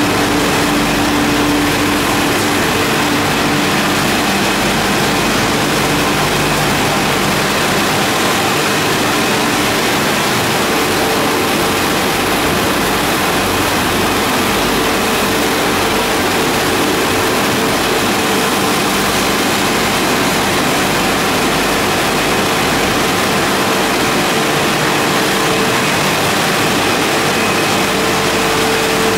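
Olive mill machinery running: electric motors, conveyors and the olive washer make a loud, steady din. Steady motor hums shift in pitch partway through.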